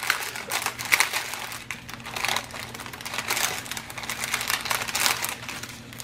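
Thin plastic bags of diamond-painting drills crinkling irregularly as hands pick them up and handle them.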